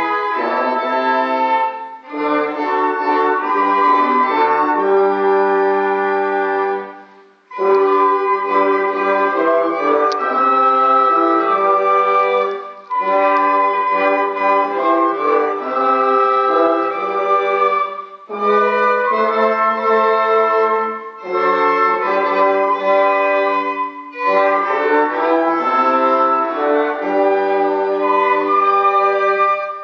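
Small amateur church ensemble of violins, flute, recorder and a brass horn playing a hymn in slow, sustained chords. It plays phrase by phrase, with short breaks between the lines, the longest about seven seconds in.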